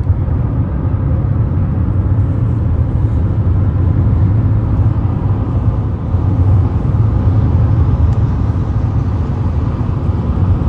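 Steady low rumble of road and tyre noise inside a car's cabin while driving at highway speed.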